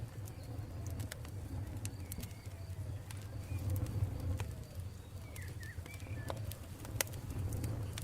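Campfire burning with a steady low rumble and scattered sharp crackles and pops, about one every second or so. Short bird calls come in now and then.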